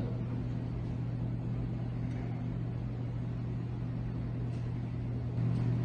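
A steady low hum that grows a little louder near the end.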